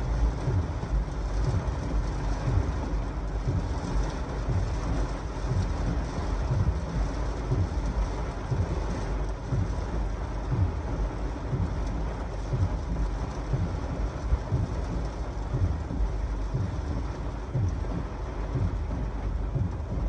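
Heavy thunderstorm rain pounding on a car's roof and windshield in strong gusty wind, heard from inside the cabin, with a low thud repeating about once a second.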